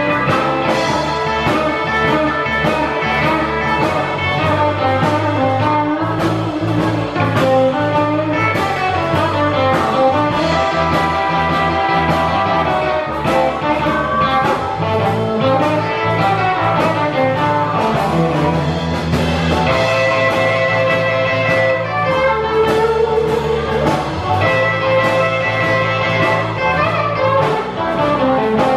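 Band playing an instrumental blues-rock passage over a steady drum beat.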